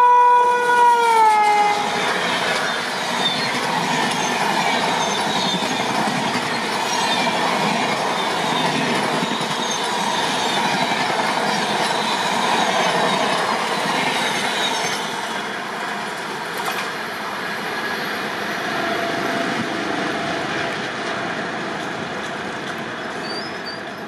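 A WAP-7 electric locomotive's multi-tone horn ends with a drop in pitch as the locomotive passes, about a second in. Then passenger coaches rush steadily past with the clickety-clack of wheels over rail joints, fading near the end as the train draws away.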